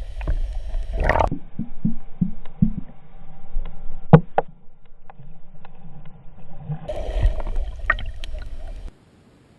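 Sounds aboard an offshore fishing boat: a low rumble with a hum, broken by scattered knocks and clicks, the loudest about four seconds in. It all cuts off abruptly near the end.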